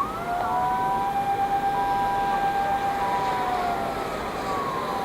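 Emergency vehicle siren wailing: it rises at the start, holds one pitch, then falls away between about three and four and a half seconds in, with a second steady tone sounding alongside.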